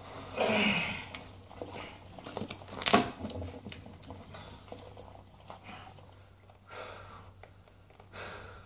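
A man's forceful grunts and heavy breaths from straining to lift a 105 kg stone: a long loud exhale about half a second in, a sharp one about three seconds in, and shorter breaths near the end.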